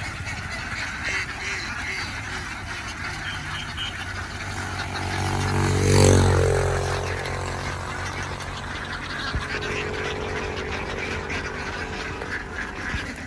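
A flock of domestic ducks quacking steadily. About halfway through, a motor vehicle passes close by: it grows louder to a peak, then fades as its engine pitch drops.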